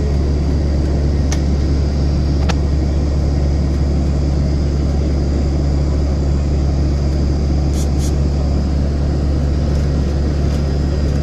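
Steady low rumble of an Airbus A321-200 airliner's jet engines and airflow heard from inside the cabin, with a faint high whine above it. A few light clicks come through, one about a second in, another a second later, and two close together past the middle.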